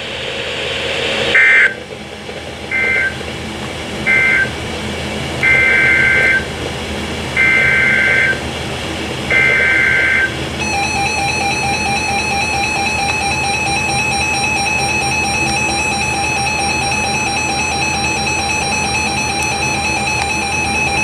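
Emergency Alert System signal over weather radio: six short bursts of warbling digital SAME header tones about a second apart, followed by a steady attention tone lasting about ten seconds. It marks the start of a new alert, here a tropical storm warning.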